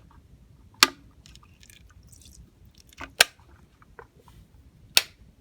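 Water being squeezed from a plastic bottle into a small water dish: faint dripping and squishing, broken by four sharp plastic clicks or taps, two of them close together past the middle.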